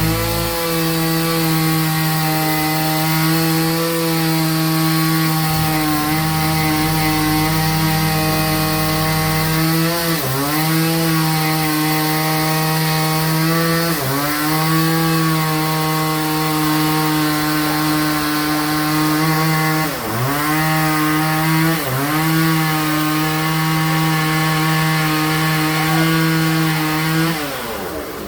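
Sawmill bandsaw cutting a large log: a loud, steady machine hum with the blade sawing through wood. The pitch sags and recovers briefly four times, the drive bogging under load, and near the end it drops away as the machine runs down.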